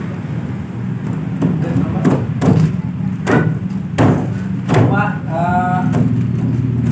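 Several short knocks and thuds over a steady low hum.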